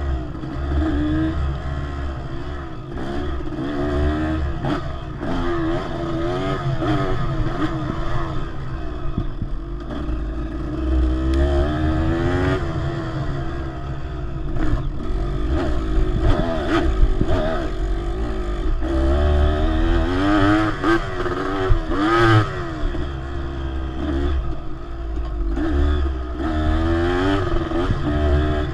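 Dirt bike engine revving up and down over and over as it is ridden along a dirt trail, with a few knocks and rattles from the bike over bumps.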